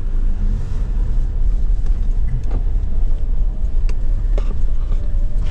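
Pickup truck driving off, a steady low rumble of engine and road noise.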